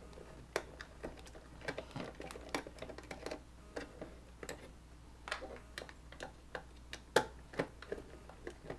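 Small screwdriver working the screws of a plastic battery box: irregular light clicks and ticks of the driver tip and the plastic, a few a second, with louder clicks about seven seconds in.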